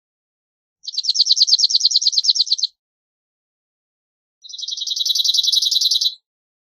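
Cirl bunting singing: two dry, rattling trills of rapidly repeated notes on one high pitch, each lasting about two seconds. The second trill is faster and buzzier than the first.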